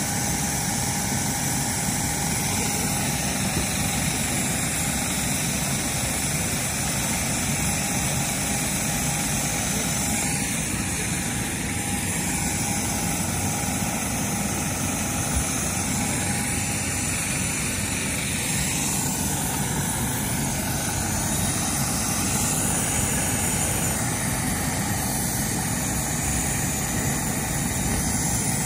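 Steady, even noise of airport surroundings with a faint constant tone in it; nothing stands out.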